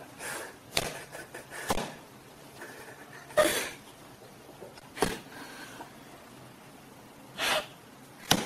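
Cats scuffling and swatting at each other on a treadmill: about six short scuffs and bumps, one to two seconds apart, over a faint steady background.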